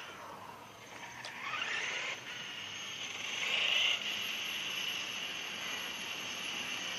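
Whine of the brushless electric motor in a radio-controlled King Motor X2 as it drives. The pitch dips and climbs about a second in, swells to its loudest near four seconds, then holds steady.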